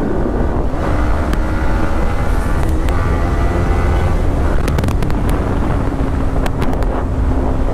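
Yamaha motorcycle's engine running steadily at road speed, under heavy wind buffeting on the rider's camera microphone, with a few sharp clicks.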